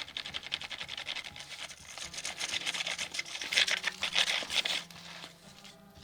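Drawing tool scratching rapidly across paper in quick back-and-forth strokes, growing louder past the middle and then dying away about five seconds in.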